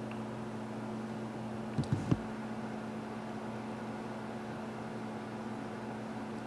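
Steady humming drone of a kitchen appliance's motor or fan, with two or three light knocks about two seconds in.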